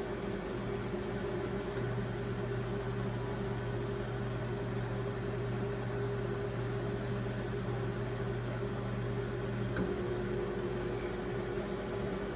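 Brastemp Clean BMP31 microwave oven (Samsung-built, 1996) running on its Auto Re-Heat cycle: a steady electrical hum with the fan running. The deeper hum swells with a faint click about two seconds in and drops back with another click near the end.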